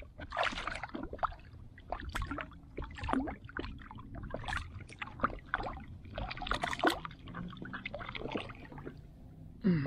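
Water splashing and lapping at the side of an inflatable boat, in short irregular splashes over a low steady rumble.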